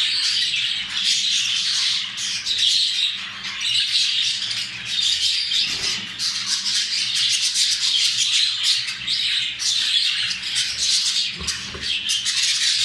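Budgerigars chattering and warbling without pause, a dense stream of rapid squawks, clicks and chirps: the excited chatter of budgies mating.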